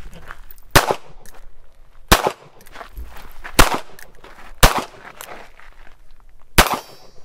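Five pistol shots from a single-action North American Arms .22 Magnum mini-revolver, fired one at a time about a second to two seconds apart, emptying its five-shot cylinder.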